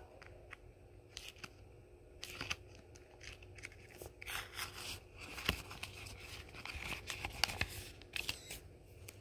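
Clear plastic binder sheet crinkling and rustling as trading cards are slid into its pockets, with scattered light clicks and scrapes, busiest in the middle.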